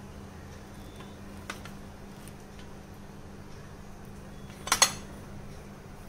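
Small ceramic bowls clinking against a ceramic plate: a faint click about a second and a half in, then a quick double clink near the end as a bowl is handled. A steady low hum runs underneath.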